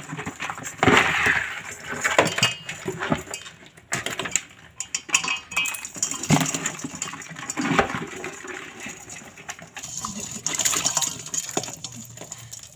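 Mud crab shells knocking and scraping against a stainless steel basin and sink while being washed by hand in water, with irregular clinks and splashing.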